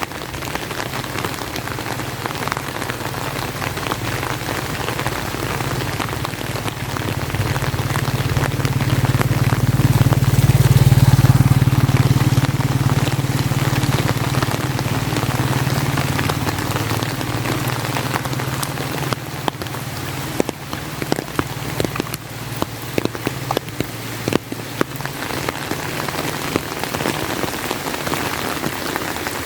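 Steady rain, with many sharp clicks of drops striking an umbrella close by. A low rumble swells to its loudest about ten seconds in, then fades over several seconds.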